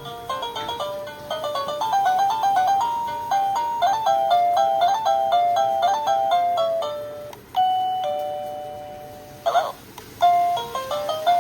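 Electronic doorbell chime playing its preset ringtones: a quick tune of plain beeping notes, then a two-note ding-dong held long on each note. A brief click or rustle comes about nine and a half seconds in, and another tune starts just after.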